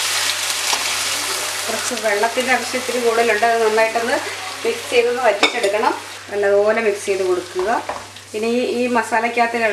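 Mutton and its stock poured into a hot pan of fried masala hiss and sizzle for the first couple of seconds. A wooden spatula then stirs the meat through the liquid in the ceramic-coated pan. From about two seconds in, a wavering pitched sound comes and goes over the stirring.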